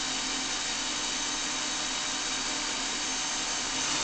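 Electric power tool motor running steadily at one constant speed, a loud whirring with a high whine.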